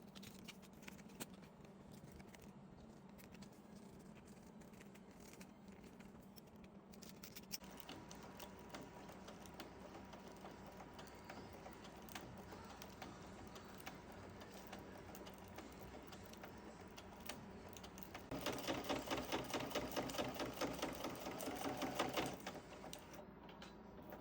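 Sewing machine stitching in a steady rapid run, with a louder stretch of about four seconds near the end.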